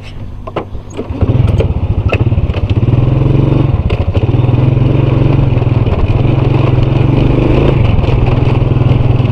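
Small motor scooter engine idling with a few light clicks, then revving up about a second in as it pulls away and running loud and steady while riding.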